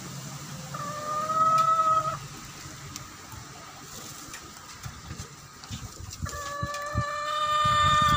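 A rooster crowing twice: a call of about a second and a half starting about a second in, and a longer one of about two seconds near the end, each held at a fairly steady pitch. A few faint crackles come from the wood fire burning in the stove.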